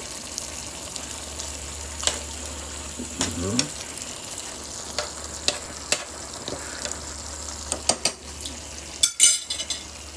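Chicken, potatoes and peppers cooking in a skillet with a steady sizzle, while a metal spoon stirs and clinks against the pan several times; the loudest knocks come near the end.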